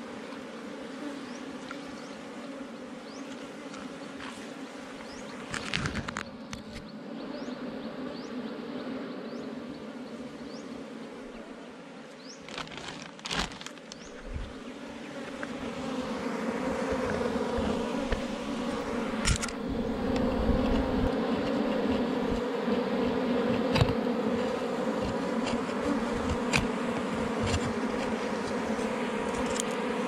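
A swarm of honeybees buzzing steadily around their opened nest, the buzz growing louder about halfway through. A few short knocks and scrapes come from the honeycomb being pulled out of the rock crevice.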